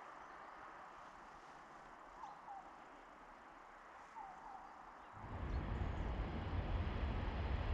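Quiet countryside ambience with a few short bird chirps. About five seconds in it cuts abruptly to a much louder, steady low rumbling noise.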